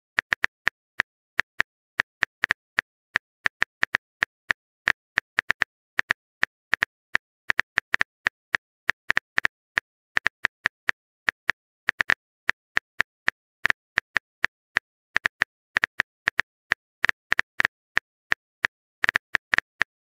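Simulated phone-keyboard typing sound effect: a fast, irregular run of short, sharp clicks, several a second, one per keystroke as a text message is typed out.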